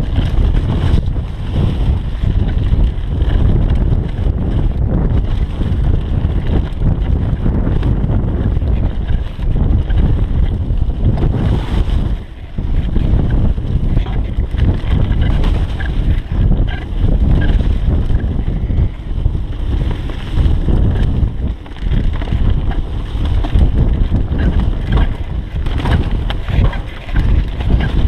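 Wind buffeting the microphone over the rumble and rattle of a mountain bike descending a rough dirt trail at speed, with many short knocks as the tyres hit roots and rocks.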